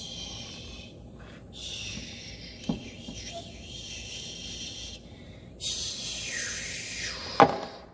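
Toy dolls and plastic doll-kitchen pieces being handled: two stretches of hiss, a few seconds each, with a small click and then a sharp knock near the end.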